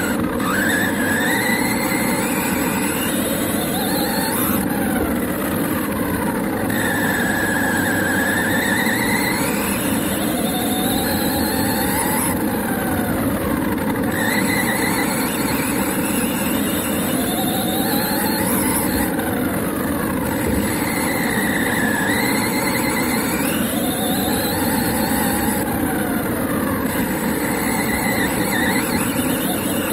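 Motor and drivetrain of an HSP radio-controlled truck running over grass, close to the camera on its chassis: a whine that rises and falls in pitch about every three to four seconds as the throttle is worked, over a steady drone from the gears and tyres.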